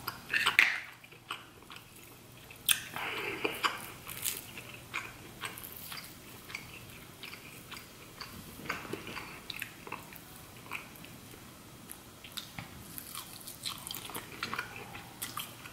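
Close-miked eating sounds: chewing and biting lobster meat, with many short, sharp clicks scattered throughout and denser clusters about half a second in and around three seconds in.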